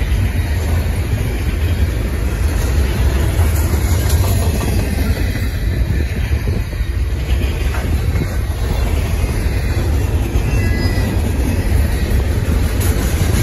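Double-stack intermodal well cars rolling past: a steady rumble of steel wheels on rail.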